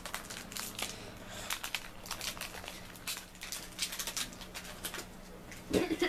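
Foil Pokémon booster pack wrapper crinkling as it is handled and opened, a run of short crackles that thin out after the first second. A brief voice sound comes near the end.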